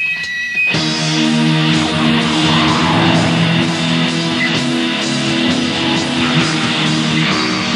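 Black metal on a lo-fi rehearsal recording: strummed electric guitar chords with the band, the full sound coming in under a second in and then holding steady.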